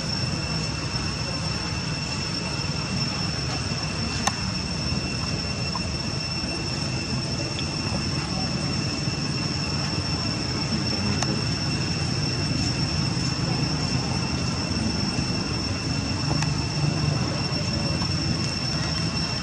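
Steady outdoor background noise: a low rumble and hiss with a constant high-pitched whine, and a single faint click about four seconds in.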